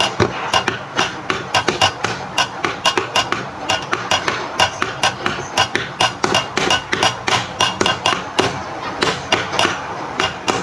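Rapid, irregular sharp tapping or knocking, several knocks a second, going on steadily.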